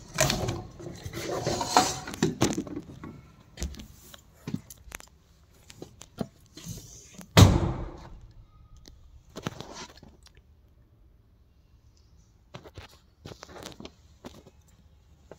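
Irregular rustling, scraping and knocks from a handheld camera being carried through a tight passage, brushing against the walls and machinery, with footsteps. A single loud knock comes about seven seconds in, and the sounds thin out to a few scattered clicks in the last few seconds.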